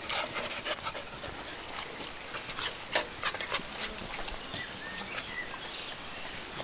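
A puppy panting as it moves about, with irregular short scuffs and rustles from its paws on dry dirt.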